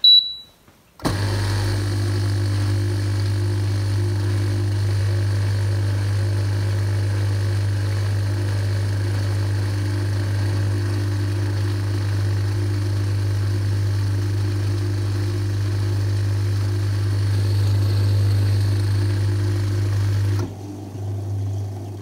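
Tabletop dishwasher beeps once as its eco programme is started, then about a second later begins a steady electric hum as it fills with water through its inlet valve. Near the end the hum drops in level.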